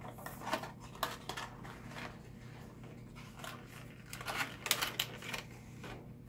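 Cardboard box and clear plastic packaging being handled as a plastic tray is slid out of its box: scattered crinkles, taps and scrapes, busiest about half a second to a second and a half in and again between four and five and a half seconds in.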